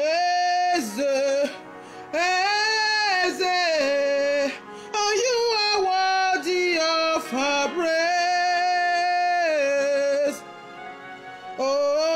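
A woman singing a worship song solo, drawing out long held notes that waver and slide in pitch, in several phrases with short breaths between them.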